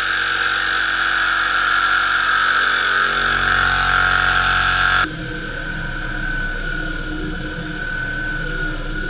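Electric jigsaw cutting through an oak worktop, a loud steady whine. About five seconds in it stops abruptly and an electric palm sander runs on the oak, quieter, with a slightly wavering whine.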